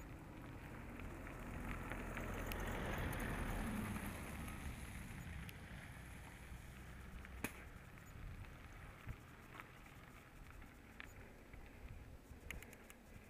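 A van passing close and driving on ahead, its engine and tyre noise swelling to a peak about three seconds in and then fading, over steady wind and road rush on the moving camera's microphone, with scattered small clicks.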